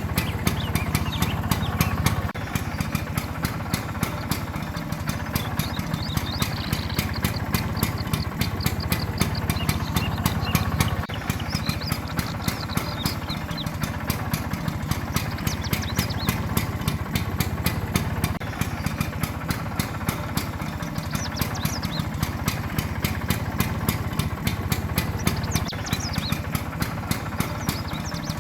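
1961 Vespa VGLB scooter's all-original single-cylinder two-stroke engine idling steadily with an even, regular beat.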